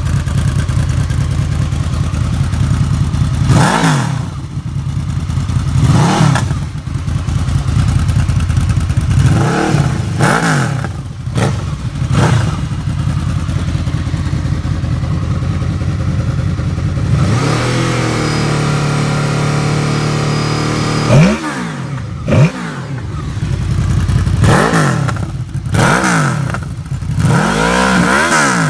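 Honda VFR800 Interceptor's V4 engine idling through a Coffman shorty exhaust with its baffle fitted, blipped in a series of short revs that rise and fall about every two seconds. About two-thirds of the way through it is held at higher revs for a few seconds before dropping back.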